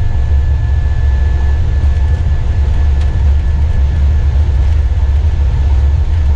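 Cockpit noise of an Airbus A320 accelerating down the runway on its takeoff roll: a loud, steady low rumble from the engines at takeoff power and the wheels on the runway, with a thin steady high tone over it.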